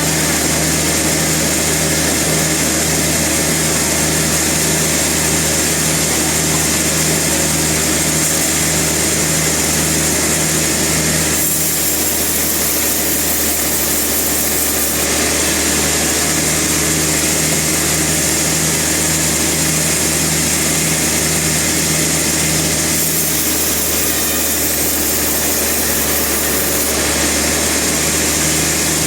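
Sawmill machinery running steadily with a constant hum. Twice a higher hiss comes in for a few seconds.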